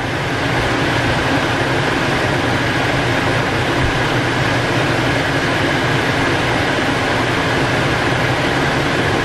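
Steady whirring noise of a fan running, with a faint steady tone in it; no distinct spoon scrapes or bubbling stand out.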